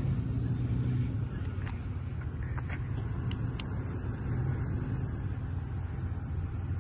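Lifted Toyota Tundra's engine running at low revs as the truck crawls toward a steep slickrock climb: a steady low rumble, a little louder in the first second, with a few faint high ticks.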